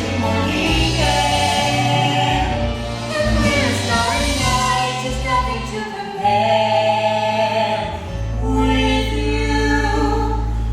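Stage musical cast singing together over a backing track, with many voices over long held bass notes.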